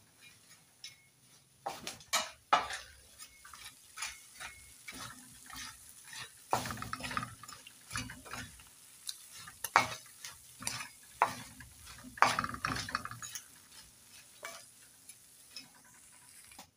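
Slotted spatula stirring and scraping small fish frying in a pan of oil, in irregular strokes, over a soft sizzle from the oil on lowered heat.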